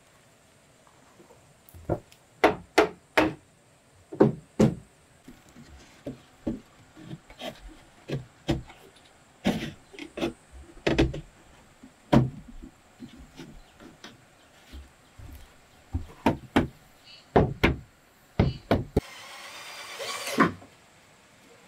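Wooden handrail being knocked down onto the tops of round wooden railing posts: a run of irregular wooden knocks, then a short scrape of wood near the end.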